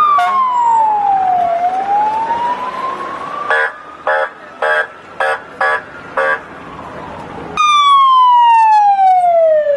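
Emergency vehicle sirens wailing, the pitch sweeping slowly down and back up. In the middle comes a run of six short horn blasts about half a second apart. Near the end a louder siren sets in abruptly, sweeping down in pitch.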